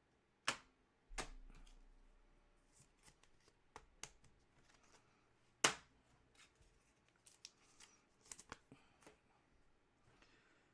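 Trading cards being handled and slid against one another: faint rustling with scattered sharp clicks and taps, the loudest about five and a half seconds in.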